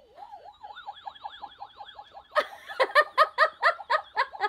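Electronic sound effect from a battery-powered light-up toy spaceship: a rapid, repeating warbling chirp with a quick wavering tone over it, like a toy siren. About halfway in, a young child starts laughing loudly in quick bursts over it.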